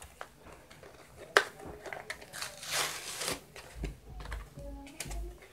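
Packaging of a UV pen being opened by hand: scattered sharp clicks and crinkling of the pack. There is one loud click about a second and a half in, then low rumbling handling noise near the end.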